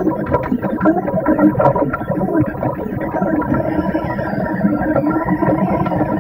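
Delta 3D printer's stepper motors whining as the print head moves, a mix of held tones and shifting pitches with faint clicks.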